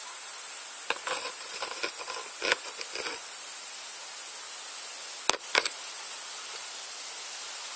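Steady high-pitched insect chorus, with a few light clicks; the sharpest two come about five seconds in.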